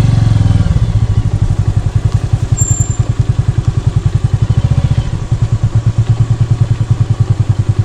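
Motorcycle engine running slowly, with an even beat of about a dozen pulses a second, as the bike is ridden at walking pace.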